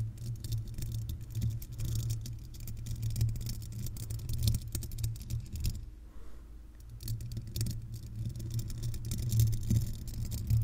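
Paper clip nails scratching and tapping on a microphone's metal mesh grille: a dense run of small metallic clicks and rasps over a steady low rumble, thinning out briefly about six seconds in.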